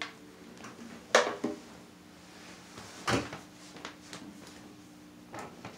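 Handling knocks from an acoustic guitar being moved and set down. A click comes first, then two sharp knocks about a second in, half a second apart, another knock about three seconds in and a few light taps near the end. The strings ring faintly after the bumps.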